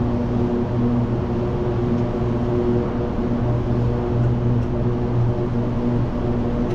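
Tractor engine running steadily at a constant speed, a low even hum with no change in pitch.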